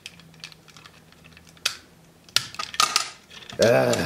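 Hard plastic parts of a transformable robot toy clicking and clacking as they are handled and repositioned, with a sharp click about halfway through and a quick run of clicks and clatter shortly after.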